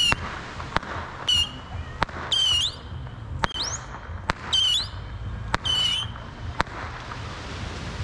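A firework fired from the beach sends up a string of whistling shots. There are about six short high whistles that drop slightly in pitch, each followed less than a second later by a sharp pop, at a rate of roughly one a second.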